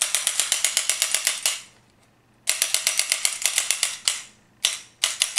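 Azodin Blitz electronic paintball marker being dry-fired in semi-automatic mode, its trigger pulled rapidly so that the gun clicks about a dozen times a second. It fires in three quick strings with short pauses between them.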